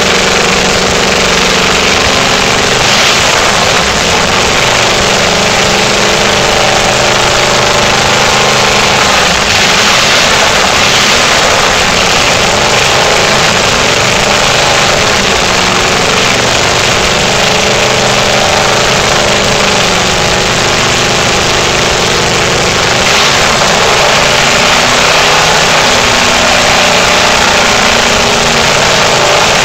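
Ford flathead V8 running steadily at idle during a test fire: a loud, even engine note with no breaks.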